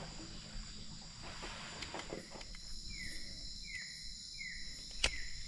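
Night chorus of insects: several steady high-pitched ringing tones. From about halfway in, a short falling chirp repeats about every 0.7 s, and a single sharp click sounds near the end.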